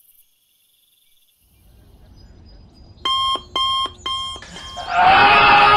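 Digital alarm clock beeping three short times, about three seconds in. A loud, drawn-out scream starts near the end.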